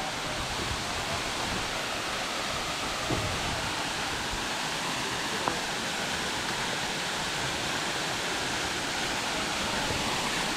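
Waterfall: a steady rush of falling water, with two faint clicks midway.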